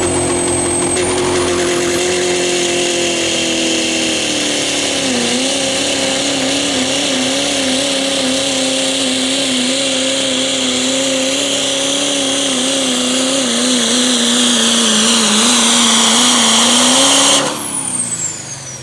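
Diesel pickup truck engine held at full throttle under heavy load while pulling a weight sled, its pitch sagging and wavering as the sled bogs it down, with a high turbo whistle over it. About seventeen seconds in the throttle is let off and the engine drops away, the turbo whine falling steeply as it spools down at the end of the pull.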